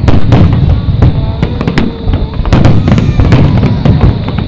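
Aerial fireworks display: a rapid barrage of overlapping shell bursts and bangs over a continuous deep rumble, loud enough to push the recording to its limit.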